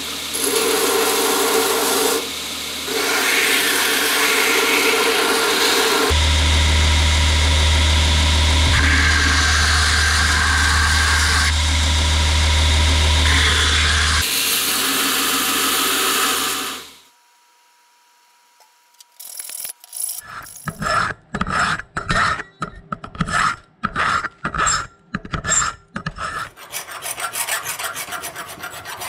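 AmeriBrade belt grinder running, with saw-blade steel ground against its abrasive belt, a steady grinding hiss with a heavy low hum through the middle part. After a brief silence, a hacksaw cuts through the steel blade clamped in a vise in quick back-and-forth strokes.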